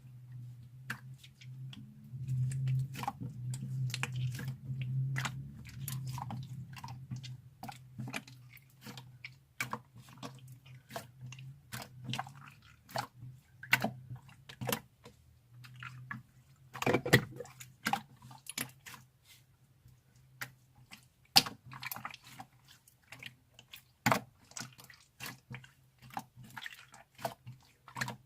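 Clear jelly slime being squished and poked by hand, giving many quick, irregular sticky clicks and wet pops, over a low steady hum that is louder in the first few seconds.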